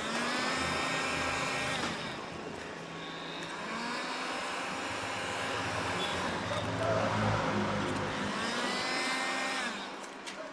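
Handheld electric heat gun running, its fan motor giving a steady whine over a rush of blown air while it warms vinyl tint film on a car headlamp. It spins up at the start and winds down shortly before the end.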